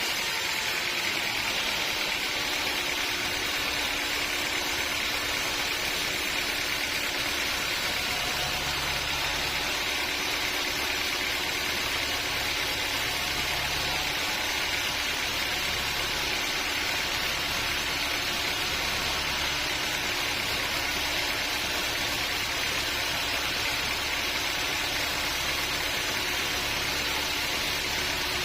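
Sawmill machinery running steadily: a constant engine hum under an even hiss, with no change in pitch or level.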